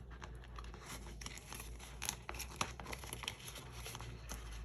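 Paper bills and budget envelopes being handled: rustling and crinkling with many small sharp clicks and taps.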